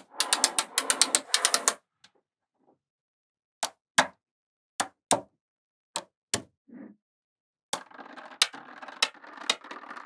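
Small metal magnetic balls clicking and snapping together as they are joined by hand: a quick rattle of many clicks in the first couple of seconds, then single sharp snaps about every half second, and another dense run of clicks near the end.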